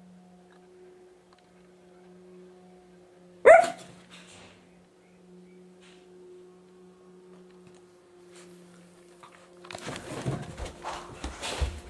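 Maltese terrier puppy giving one sharp bark about three and a half seconds in, over a faint steady hum. From about ten seconds on come scuffling and thumps as the puppy scrambles off across the carpet.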